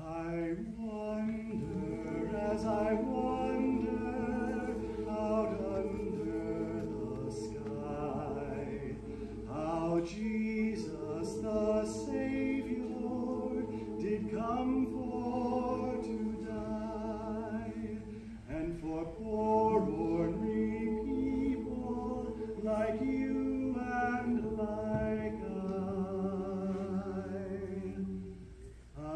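A choir singing in harmony, without words clear enough to transcribe, in long sustained phrases with vibrato on the held notes and a short break about eighteen seconds in.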